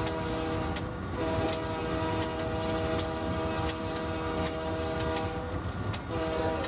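Locomotive air horn sounding from inside the cab: a long blast, a brief break about a second in, another long blast, then a pause of about a second before it sounds again near the end. Under it, wheels click over rail joints about every 0.7 s, with the diesel's low rumble.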